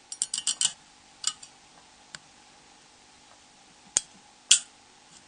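Light clicks and taps of small tools handling plastic phone parts during disassembly: a quick cluster of clicks at the start, a few scattered single clicks, then two sharper clicks near the end.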